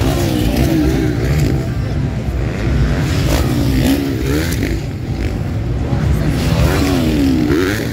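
Motocross motorcycle engines racing on the track, their pitch rising and falling over and over as the riders rev through the course.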